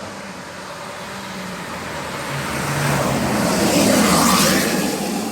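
A road vehicle passing close by. Its engine hum and tyre noise swell to a peak about four seconds in, then fade as it moves away.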